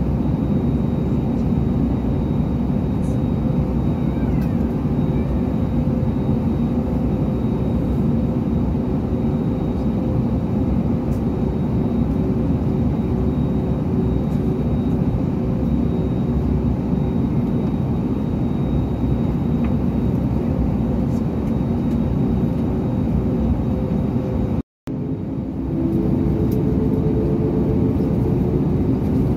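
Steady cabin noise of an Airbus A321neo moving slowly on the ground: a loud, even rumble with a few steady hums. The sound cuts out for an instant near the end, then returns the same.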